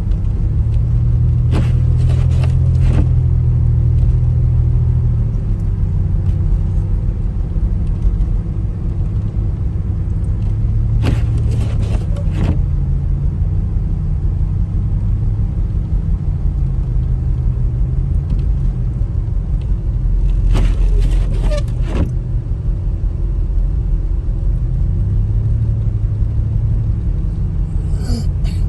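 Motor vehicle running with a steady low rumble of engine and road noise. Short clusters of clicks or rattles come four times, roughly every nine to ten seconds.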